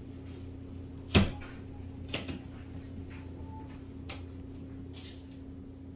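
Canless LED recessed light being pushed up into its ceiling hole: a sharp snap about a second in as its spring clips catch, then a few lighter clicks and taps of the trim against the ceiling. A steady low hum underneath.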